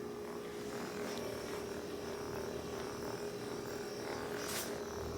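Quiet room tone with a steady electrical-sounding hum, and one brief soft noise about four and a half seconds in.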